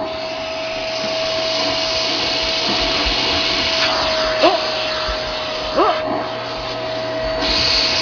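Canister vacuum cleaner running with a toy's string sucked into the nozzle, giving a steady whistling tone over the motor's rush of air. Two brief squeaks come about four and a half and six seconds in.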